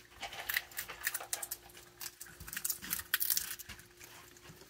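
Raccoons feeding at trays of dry birdseed and kibble, making a run of small crackly clicks and crunches as they chew and rummage through the dry food.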